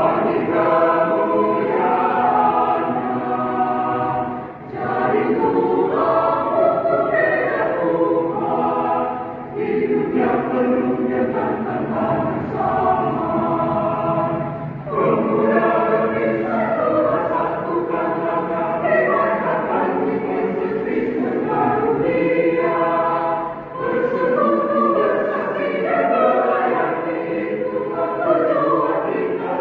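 Youth church choir singing, its sung phrases broken by brief pauses a few times.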